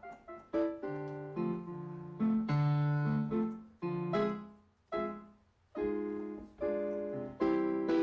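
Background piano music: slow single notes and chords, each struck and left to fade, with a brief lull about five seconds in.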